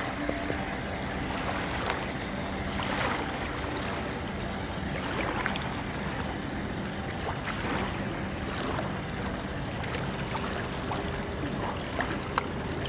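Small waves lapping and splashing at the water's edge in an irregular rhythm, over a steady wash of wind and water, with a faint steady low hum beneath.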